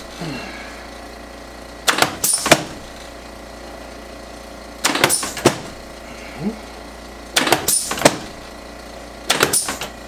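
Sharp knocks in quick clusters of two to four, coming about every two to three seconds, while a chiropractor works a seated patient's foot and ankle on an adjusting table. A steady low hum sits underneath.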